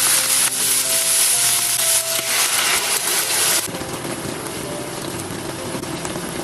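Food sizzling in a hot frying pan, a dense hiss that is loud for the first three and a half seconds, then quieter, and cuts off abruptly at the end, with soft background music.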